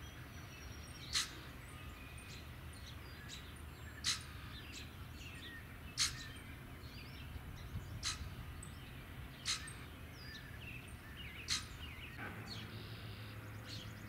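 Common grackle giving short, harsh, unmusical squeaky calls, one every two seconds or so, with faint chirps of other small birds underneath.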